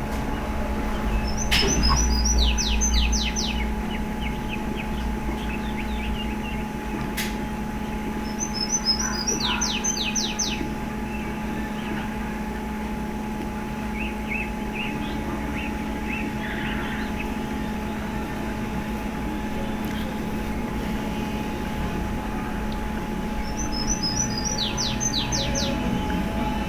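A songbird singing the same short high song three times, a quick run of notes ending in a few falling strokes, over a steady low hum.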